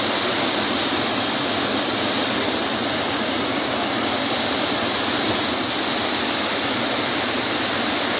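Floodwater of a swollen river rushing past in a loud, steady, unbroken rush.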